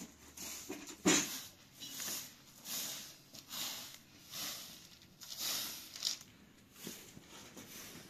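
Hand-tied straw bundle broom sweeping a concrete floor: a run of brisk swishes, about one a second, the stroke about a second in the loudest.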